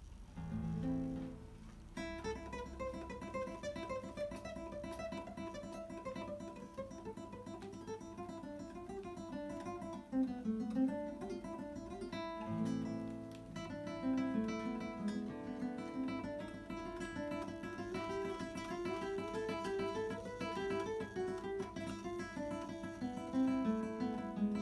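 Solo acoustic guitar played with plucked notes: a quick melody rising and falling over low bass notes.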